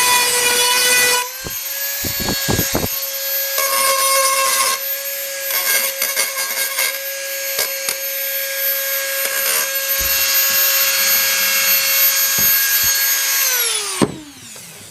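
Dremel 4000 rotary tool running at high speed with a steady whine, grinding against a garden tool's edge to sharpen it, with scraping noise from the work. Near the end the motor is switched off, and its whine falls in pitch as it spins down.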